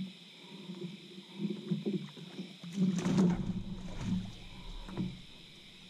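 Irregular knocks, thumps and rustles of someone moving about in a small boat, gear bumping the hull, loudest about three seconds in. Crickets chirp steadily behind.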